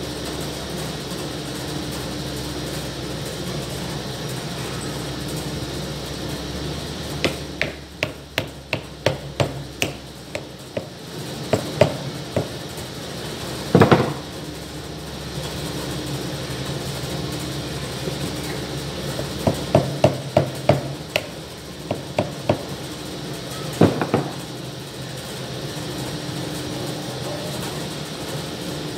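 Hammer tapping a wooden top disc down onto a slatted wooden lantern frame: two runs of light, quick taps at about three a second, each followed by a single heavier knock. A steady hum sits underneath.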